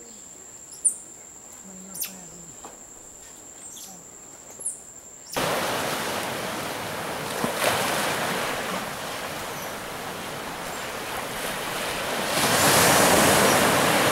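Rainforest insect whine, one steady high tone, with a few short sharp high calls; about five seconds in it cuts to ocean surf washing on a beach, the waves swelling loudest near the end.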